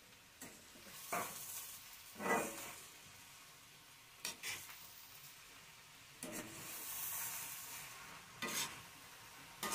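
Steel spatula scraping and stirring grated carrots and sugar in a black wok (kadhai), with the carrots sizzling softly in ghee. The scrapes come every second or two, and the sizzle swells for a couple of seconds past the middle.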